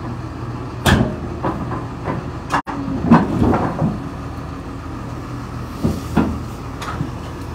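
Tracked excavator's diesel engine running steadily while its steel tracks clank and knock on the trailer deck as it drives on, with a sharp clank about a second in and a cluster of knocks around three seconds.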